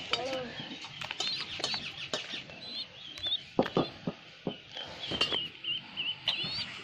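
Small birds chirping and peeping: many short, high calls that rise and fall. Scattered knocks and rustles run under them, the sharpest about three and a half and five seconds in, as a hand handles a baby pigeon on a woven straw mat.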